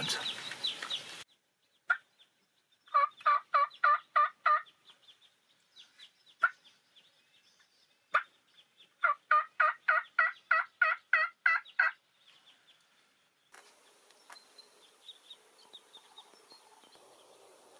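Hen turkey yelps made on a hunter's turkey call. A run of about six yelps comes a few seconds in. After a pause there is a longer run of about ten yelps at roughly three a second. A single lone note comes before each run.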